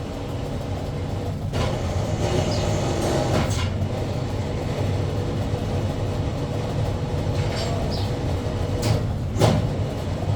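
Factory machinery running with a steady low rumble and hum, broken by a few short harsh noises, the loudest about nine and a half seconds in.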